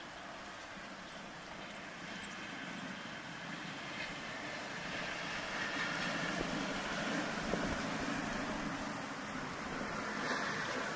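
A ute driving past: a steady whoosh of tyres and engine that grows louder over several seconds and is loudest about six to eight seconds in.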